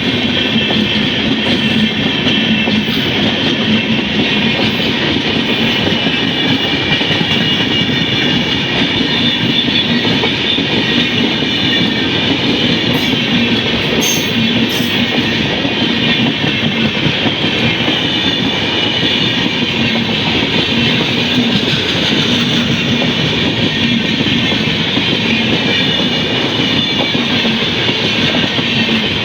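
A train passing at close range: steady loud running noise of its wheels on the rails, unbroken for the whole stretch, with a few faint sharp clicks about halfway through.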